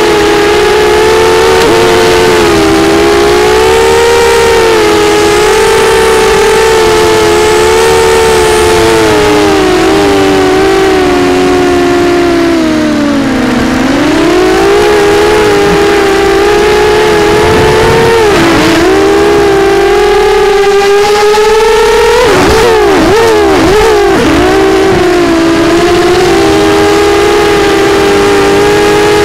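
Brushless motors and propellers of a 250-size FPV quadcopter (Sunnysky 2204 2300 kV motors, Gemfan 6045 props), heard from the camera on board. They make a loud, continuous buzzing whine that rises and falls with the throttle. The pitch sinks for a moment about halfway through and warbles rapidly twice later on as the throttle is chopped and punched through acro moves.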